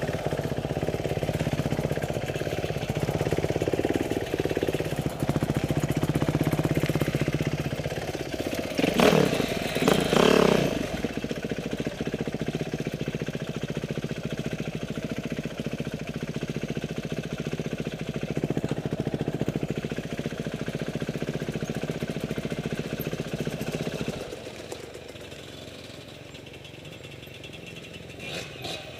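Motorcycle engine running steadily, with two louder surges of revs about nine and ten seconds in, then dropping to a quieter, lower note for the last few seconds.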